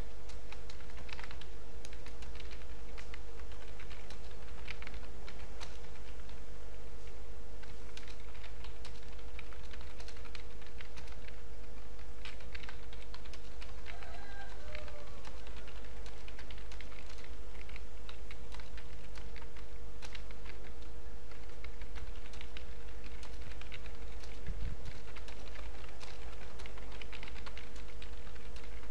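Computer keyboard typing: a fast, irregular run of key clicks over a steady electrical hum, with one dull thump near the end.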